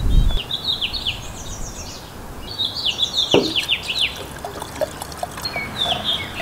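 A songbird singing in repeated runs of quick downslurred notes while paint thinner is poured from a metal can into a plastic container. There is a low thump at the start.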